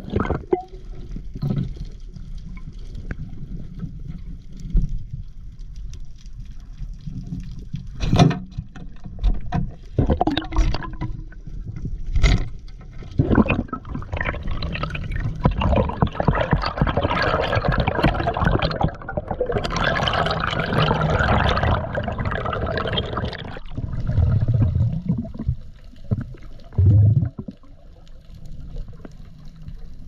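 Water sloshing and gurgling on an underwater camera's microphone, with a few sharp knocks. A long stretch of dense rushing water noise sets in about a third of the way through and stops suddenly just past the three-quarter mark.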